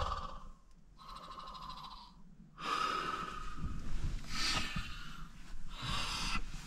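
A person breathing heavily: about four long, airy breaths in and out, each lasting roughly a second.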